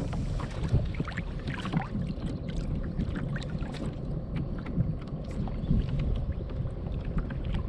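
Water lapping and slapping against a kayak hull in many small sharp ticks, over a steady low rumble of wind on the microphone.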